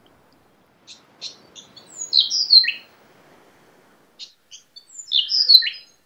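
Brown thornbill singing the same short phrase twice, each opening with a few quick high ticks and running into rich, falling whistled notes that end on a downward slur.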